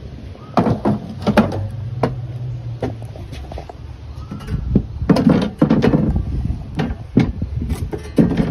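Footsteps on wooden porch boards, with a metal shovel knocking and scraping as it is carried and set down: a run of sharp knocks and clatters, loudest about halfway through and near the end.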